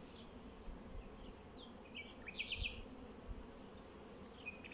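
Honeybees buzzing around an open hive, with a frame of comb covered in bees lifted out of the box. There are a few faint high chirps about halfway through.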